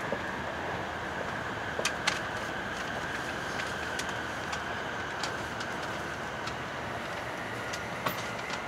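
Steady running noise of a Shinkansen Nozomi train heard inside the passenger car as it slows for a station stop, with a faint high whine that slides a little lower over the first few seconds. Scattered sharp clicks and ticks sound through it.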